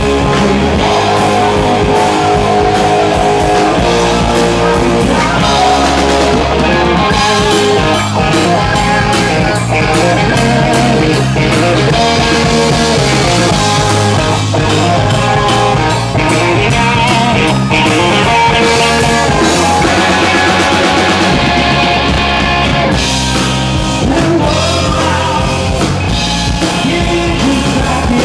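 Rock band playing loud live music with electric guitar, drum kit and vocals.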